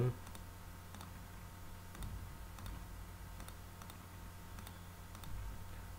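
Faint computer mouse clicks, several scattered single clicks, over a low steady electrical hum.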